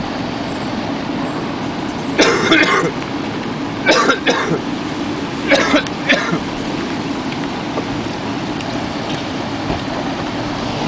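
Steady low rumble of a vehicle running, broken by three short, loud bursts of a person coughing, about two, four and five and a half seconds in.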